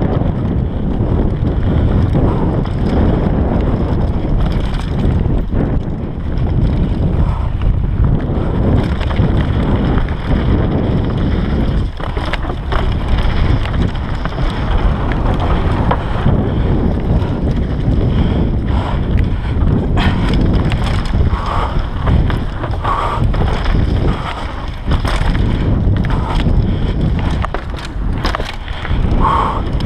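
Bergamont Big Air 6.1 downhill mountain bike ridden fast down a trail: wind buffeting on the GoPro's microphone over a constant tyre rumble, with frequent knocks and clatter as the bike hits bumps.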